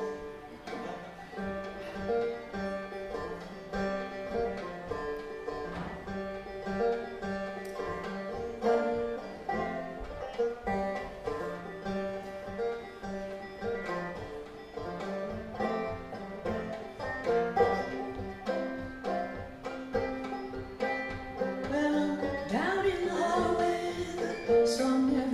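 A banjo played solo, picking a steady run of notes.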